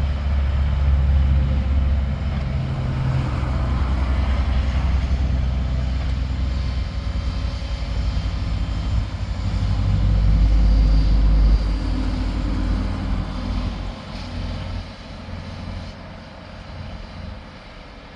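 Diesel engine of heavy construction equipment running with a deep rumble. It swells again about ten seconds in, then fades over the last few seconds.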